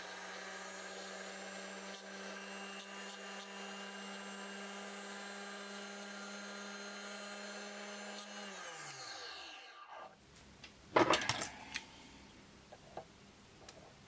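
Benchtop drill press motor running steadily with a file rubbing on a model-train axle spinning in its chuck, turning it down into a thin pin. The motor is switched off about eight and a half seconds in and winds down, falling in pitch, and a few sharp clicks of metal being handled follow about a second later.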